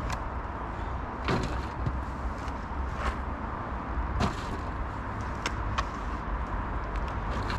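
A spade digging into clay soil and tipping it into a metal wheelbarrow: a few short scrapes and knocks, spaced a second or so apart, over a steady low hum.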